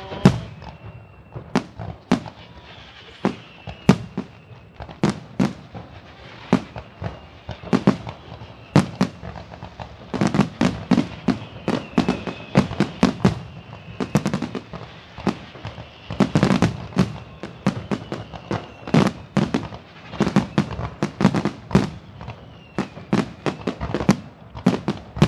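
Fireworks going off: a long run of sharp bangs and crackles, many close together in the middle stretch, with faint whistling glides among them.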